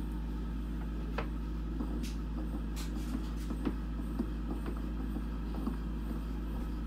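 Bathroom exhaust fan running with a steady hum, with a few light clicks and taps of handling scattered through it.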